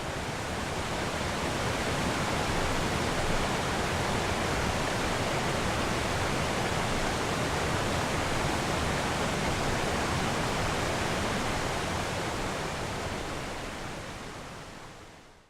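Waterfall: a steady rush of falling water that fades out over the last couple of seconds.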